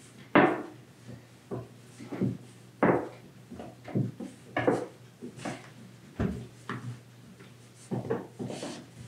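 Rolling pin rolling out a large ball of dough on a board, knocking and thudding irregularly, about a dozen times.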